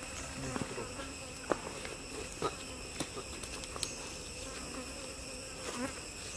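Forest insects droning steadily in several high tones, with scattered short clicks and chirps over the top.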